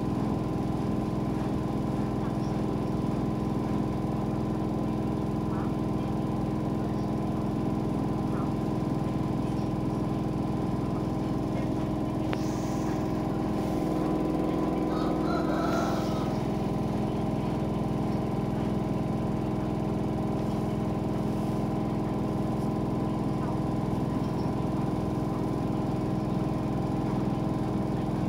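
Washing machine's electric motor running with a steady hum that does not change, with a brief faint rattle about halfway through.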